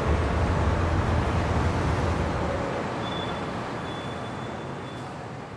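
Steady rumbling background noise, like road traffic, that gradually fades out.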